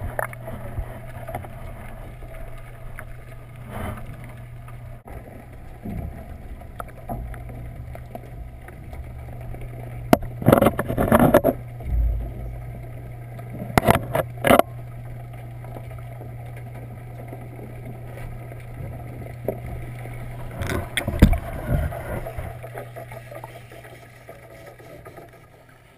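A steady low machinery hum heard underwater in a crab holding tank. A few short knocks and bumps stand out over it, a cluster around the middle and another later on.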